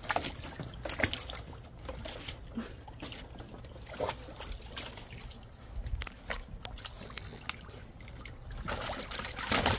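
Scattered light taps and clicks, then near the end a louder stretch of water splashing and sloshing as golden retriever puppies paw and wade in a plastic wading pool.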